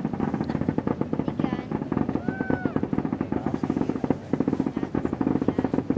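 Fireworks going off in a rapid barrage of pops and bangs, many a second, with no let-up.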